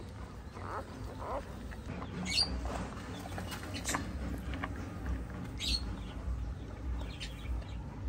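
Newborn puppies squeaking: a few short, high squeaks over a low steady rumble.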